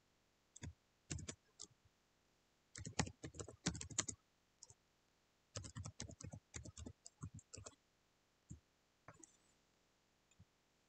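Computer keyboard keys clicking in quick bursts as text is typed, then a few lone keystrokes near the end.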